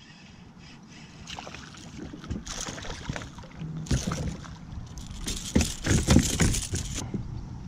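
A small striped bass splashing and thrashing at the surface beside a plastic kayak as it is reeled in and grabbed, with irregular splashes and knocks that are heaviest a little past halfway.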